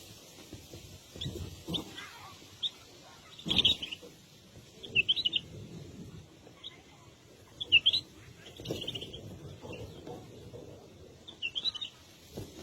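Small birds chirping: short high cheeps, single or in quick clusters every second or two, over low irregular rustling.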